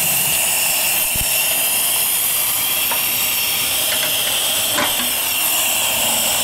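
Steady hiss of steam from a wood-fired fire-tube boiler under pressure, most likely its steam blower ring jetting up the stack to force draft through the fire. A few faint clicks sound over it.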